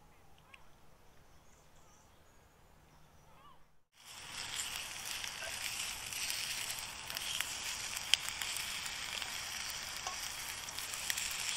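Bacon rashers sizzling in a hot double-sided grill pan, a steady loud hiss dotted with crackles and one sharp spit. It starts suddenly about four seconds in, after a few quiet seconds.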